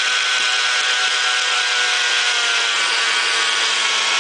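Countertop blender motor running steadily at full speed, churning a milk-and-fruit smoothie in its jar; the motor's whine sags slightly in pitch near the end.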